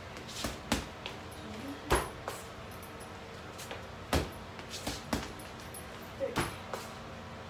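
Kicks and gloved punches landing on a hanging Everlast heavy bag: three heavy thuds about two seconds apart, with lighter smacks in between.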